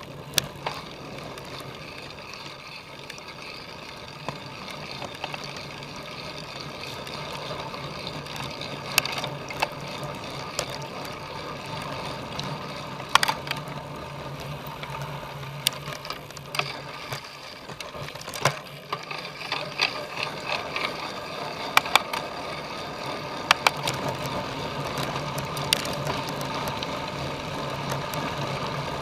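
Cyclocross bike ridden hard over rough ground: a steady hum from the tyres and drivetrain, broken by scattered sharp clicks and knocks as the chain and frame rattle over bumps.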